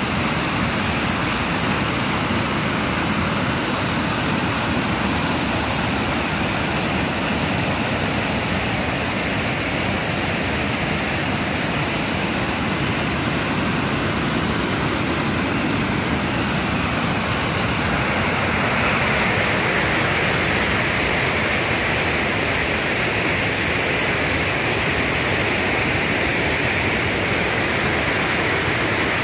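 Rushing water of a waterfall on a river, a loud steady rush that grows a little brighter about two-thirds of the way through.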